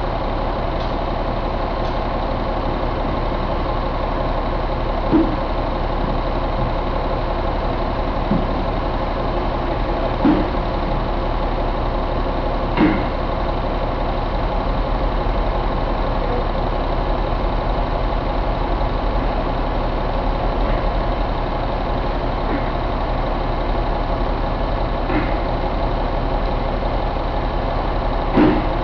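Caterpillar 3306 inline-six diesel engine running at a steady idle. A few short sharp knocks sound over it at uneven intervals.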